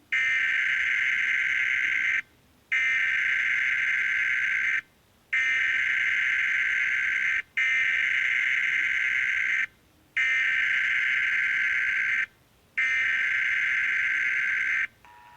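Emergency alert tone sounding in six long beeps, each about two seconds, with half-second gaps between them.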